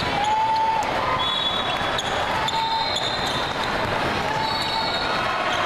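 Basketball sneakers squeaking on a hardwood court during play: several short, high squeals, with scattered light knocks over a steady background of voices and game noise.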